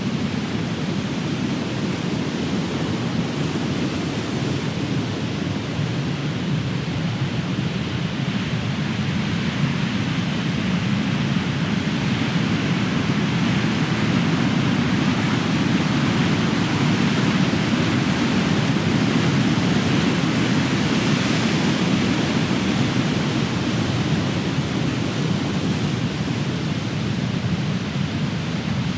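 Big ocean waves crashing: a continuous wash of surf that swells a little louder through the middle.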